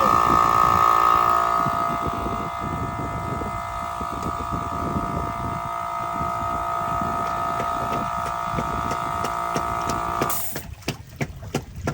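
A small engine running steadily with a high-pitched whine, stopping abruptly about ten seconds in, after which there are a few scattered knocks.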